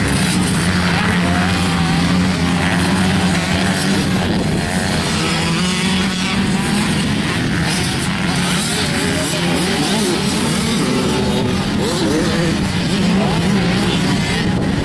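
85 cc two-stroke motocross bikes running on the track, engines revving up and down so the pitch keeps rising and falling over a steady drone.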